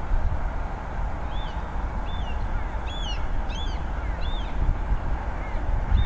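A bird calling repeatedly in short, arched chirps, about six in a row, over a steady low rumble and hiss.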